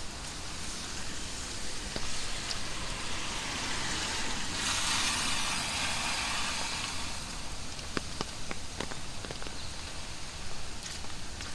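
Heavy tropical rain falling steadily, with a louder hiss that swells about halfway through and fades a couple of seconds later, and scattered sharp drip ticks near the end.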